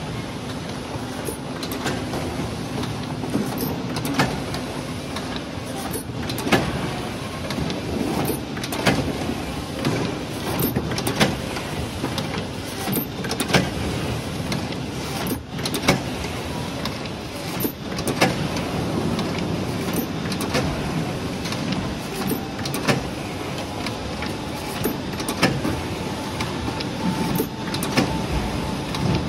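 Ultrasonic paper-banding machine on an apple packing line running in cycles, with a sharp clack about every two and a half seconds as it bands each punnet, over a steady machine hum.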